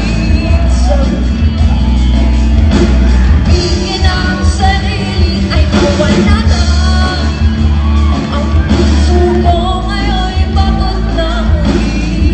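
Live rock band playing through a PA: a woman singing lead over electric guitars and drums.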